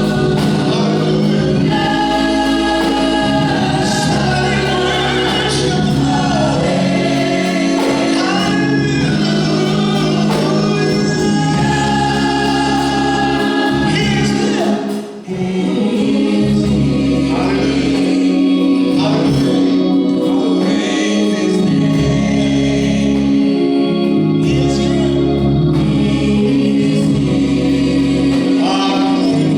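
Gospel choir singing with instrumental accompaniment, with a brief break about halfway through.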